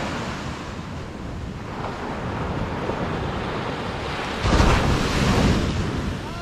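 Ocean surf washing up a sandy beach, with wind buffeting the microphone. A louder rush of surf and wind comes about four and a half seconds in.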